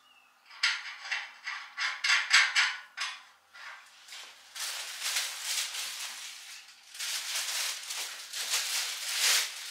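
Quick clicking and rattling of small metal parts as a wheel's washer and nut are fitted by hand, then a clear plastic parts bag crinkling and rustling for several seconds.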